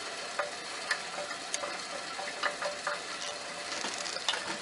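Scattered light clicks and taps of a freshly ground metal lathe part being handled and test-fitted, over a steady faint crackly hiss.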